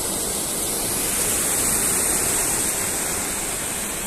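River water pouring over a low concrete weir and churning in the pool below: a steady, even rush.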